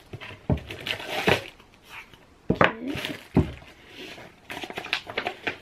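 Plastic parts of an essential-oil diffuser being unpacked and handled: a string of short, sharp clicks and knocks, with a paper instruction leaflet handled near the end.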